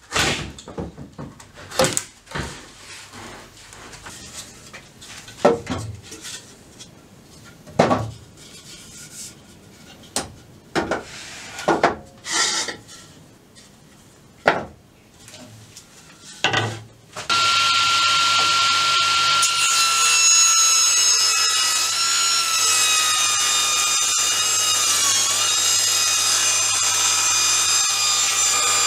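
A few handsaw strokes and knocks of wood being handled, then a table saw switches on a little over halfway through and runs with a loud, steady whine. Its pitch wavers briefly as a length of mahogany window frame is fed into the blade.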